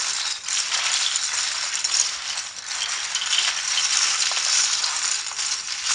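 A pile of loose HyperX double-shot PBT plastic keycaps being scrambled together by hand: a dense, continuous clattering rattle of keycaps knocking and scraping against each other.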